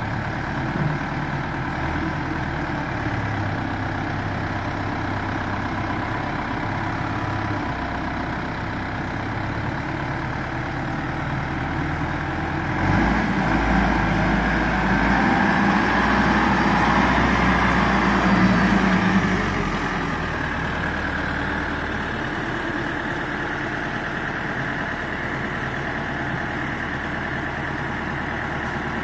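Volvo BL71 backhoe loader's diesel engine running at idle, growing louder for about six seconds midway before settling back to idle.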